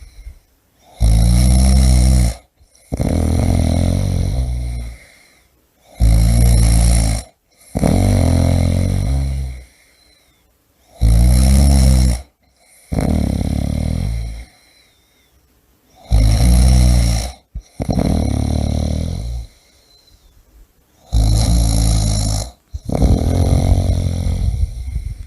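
A person snoring loudly and rhythmically, about one snore every five seconds. Each snore is a short loud pitched part followed by a longer breath that fades out.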